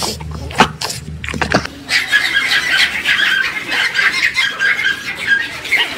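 A shar-pei snuffling with short clicks, then from about two seconds in a pack of Pomeranians yapping all at once, a dense high-pitched chatter of overlapping yips.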